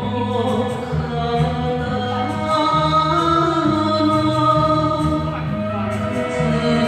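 A Japanese enka song with singing over a band accompaniment, held melodic notes above a repeating bass line.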